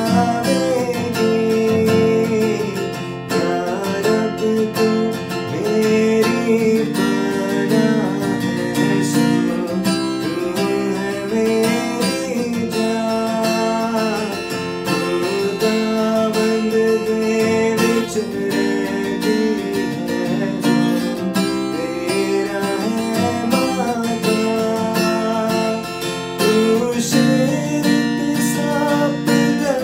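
A man singing a worship song while strumming an acoustic guitar.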